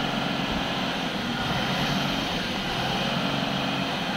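Heavily loaded 12-tyre lorry's diesel engine running with a steady low drone as the truck moves slowly.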